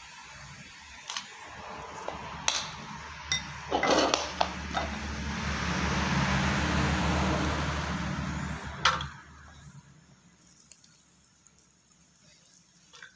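A metal knife and spoon clink and scrape against ceramic bowls as chopped chilies and garlic are scraped into a bowl and stirred. Over it, a rushing noise with a low hum swells and then fades out about nine seconds in, and a sharp clink is heard just as it ends.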